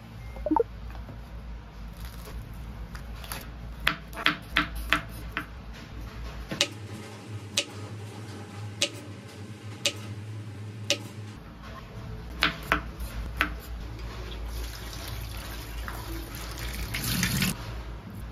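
Kitchen knife chopping vegetables on a bamboo cutting board: a run of sharp, irregular knocks. Near the end, water from a tap pours into a stainless steel sink as green beans are rinsed.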